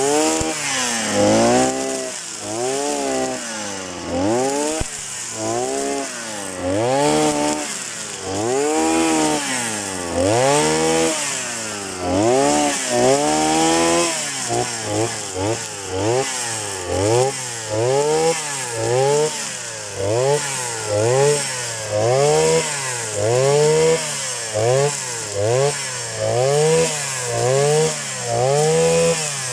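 Petrol brush cutter running as grass and weeds are mowed, its engine revving up and dropping back about once a second with each pull of the throttle and swing of the cutter.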